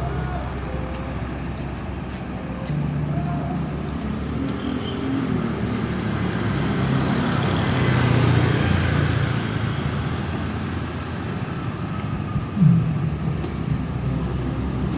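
Road traffic: engines running steadily, with a large vehicle passing that is loudest about halfway through. A brief sharp sound comes near the end.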